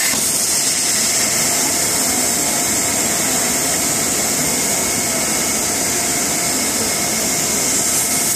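Steady, loud hissing rush from a CNC gantry thermal cutting machine cutting steel plate. The torch finishes its cut near the start, and the hiss carries on unchanged after it.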